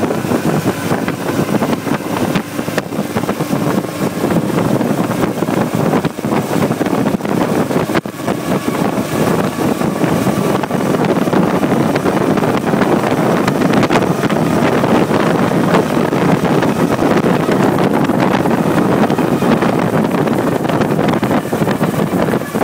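Brasier racing car's engine running under way at speed, with wind buffeting the microphone; a little louder from about ten seconds in.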